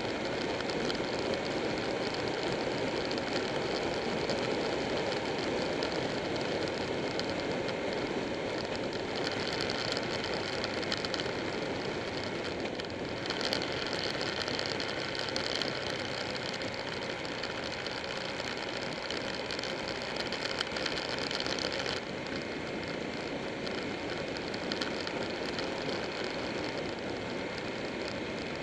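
Buell 1125R motorcycle cruising at a steady speed: steady rush of wind on the bike-mounted microphone mixed with its 1125 cc V-twin engine running and tyre noise. The noise eases slightly about three-quarters of the way through.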